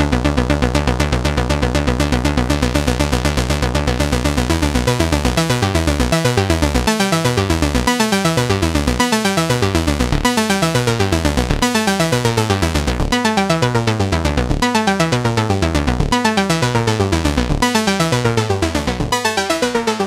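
Cherry Audio Chroma software synthesizer playing an electronic preset as a rapid pulsing pattern. From about five seconds in, falling pitch sweeps join the pattern, repeating about once a second.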